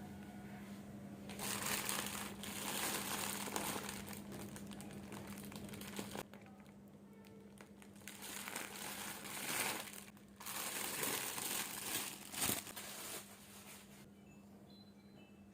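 Packaging crinkling and rustling as it is handled, in three stretches of a few seconds each, over a faint steady hum.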